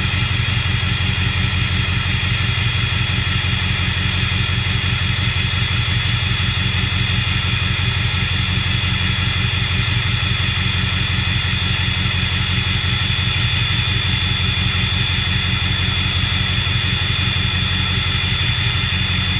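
Ford 6.0 Power Stroke V8 turbo-diesel of a 2007 F-350 idling steadily, with a steady high whistle from its turbocharger over the low engine pulse.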